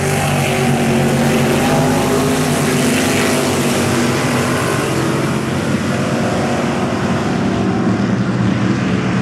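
Engines of several Sportsman dirt-track race cars running at racing speed around the oval, a loud continuous drone of overlapping engine notes that shift as the cars pass along the fence.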